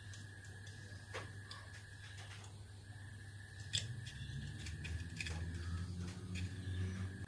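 Scattered light clicks and taps of small plastic model-kit parts being handled and fitted, one sharper click near the middle, over a steady low hum; a low rumble builds in the second half.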